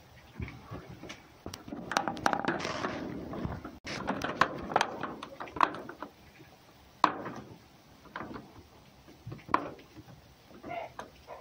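Irregular knocks, clicks and scuffs on wood as a cat and a fox move about on a wooden box, busiest in the first half and sparser after.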